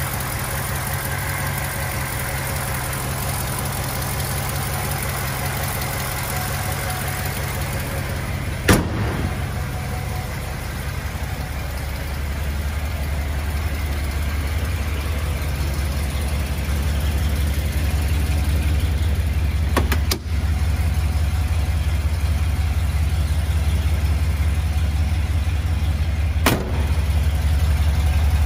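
A 1965 Ford Galaxie 500's 390 V8 idling steadily, a little louder and deeper after about twelve seconds, with three brief sharp clicks along the way.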